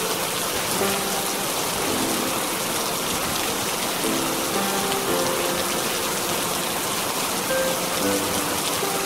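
Steady rain falling, an even dense hiss, with soft held music notes playing quietly underneath.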